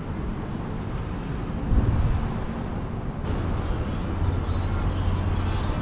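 Low vehicle rumble of street traffic with wind on the microphone; a steady low engine hum sets in about halfway through.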